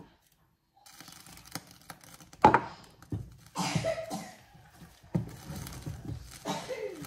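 Wooden cooking stick stirring and pressing stiff ugali in a stainless steel pot: irregular scraping and knocking against the pot, with one sharp knock about two and a half seconds in.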